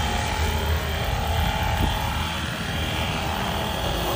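Remote-controlled scale helicopter's rotor and motor running as it comes down and lands on the pavement: a steady whine over a low thrum.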